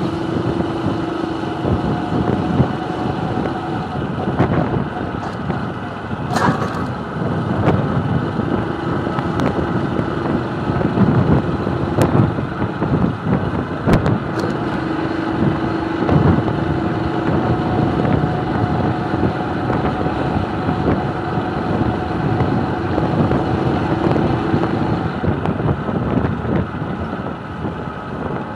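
Motorcycle engine running at low speed while riding, with a steady hum that holds for stretches over a dense low rumble. A few brief sharp ticks cut through now and then.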